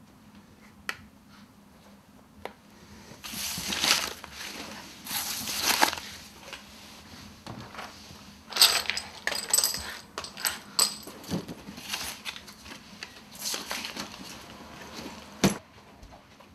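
Handling noises: bursts of rustling, then scattered clatter and light clinks, and a single sharp knock near the end.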